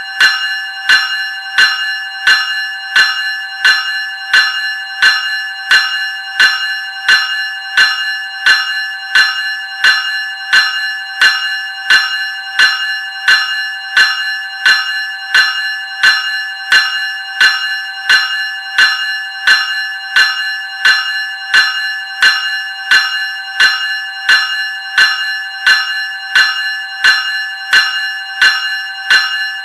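Graham Electric Bell 373 Series ringing: its clapper strikes the gong at an even pace, about four strikes every three seconds, each stroke ringing on into the next with a steady metallic tone.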